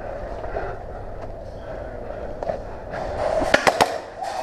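Steady rustling movement noise, then a quick string of about four sharp airsoft gun shots near the end.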